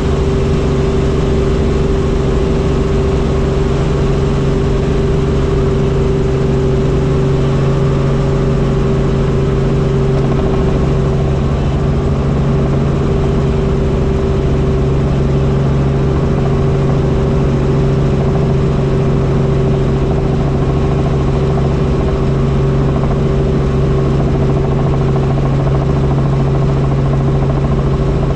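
Helicopter in steady flight: a loud, unchanging drone of turbine and rotor with a constant low hum and a fast low beat from the blades.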